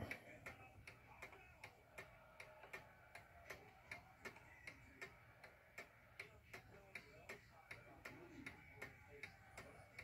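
Freshly wound antique mantel clock ticking: faint, steady, even ticks of its movement.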